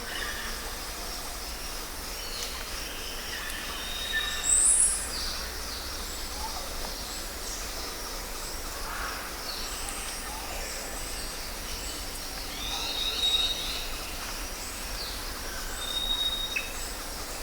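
Jungle ambience: many birds calling and whistling over a steady hiss, with a loud high call about four and a half seconds in.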